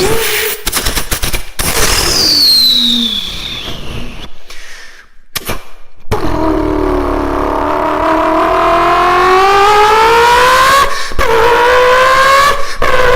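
Turbocharged car engine with a loud turbo whistle. A high whistle falls in pitch a couple of seconds in. From about six seconds the engine note and whistle climb steadily as it accelerates, with two brief breaks near the end.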